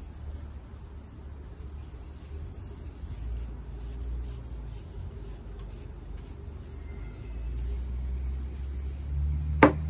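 Terry cloth rubbing finish onto a spalted oak cup, soft scratchy strokes over a steady low rumble. Near the end a sharp click, then guitar music starts.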